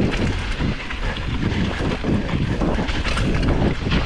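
Wind buffeting the microphone while a mountain bike clatters and rattles over a rough, rocky descent at speed.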